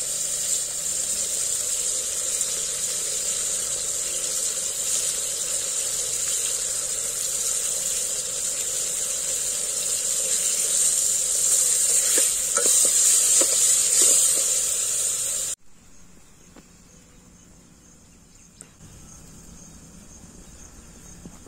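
Chopped tomatoes, small onions and garlic sizzling steadily as they fry in sesame oil in a metal pot over a wood fire, with a few light clicks near the two-thirds mark. About three-quarters of the way through the sizzle cuts off suddenly, leaving only a faint background.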